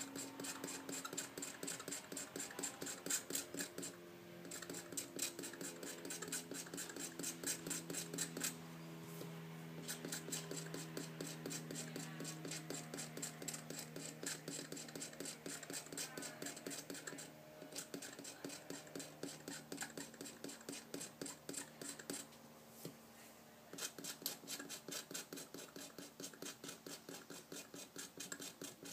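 Aven Tools precision hobby knife blade scraping solder mask off a printed circuit board in quick, repeated short strokes, about three a second, flaking the mask away from the copper. The scraping stops briefly a few times.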